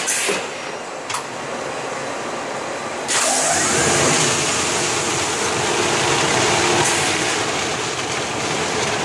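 Textile fabric-roll press machine running as a wrapped roll of cloth moves along its belt conveyor: a steady mechanical hiss with a click about a second in, then a louder hissing run starting about three seconds in that eases near the end.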